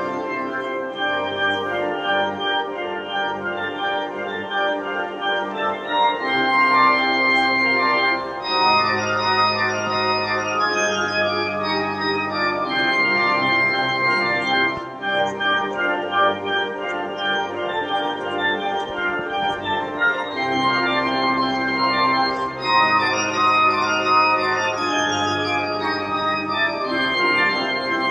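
Background music: held keyboard chords over a bass line that changes every two seconds or so.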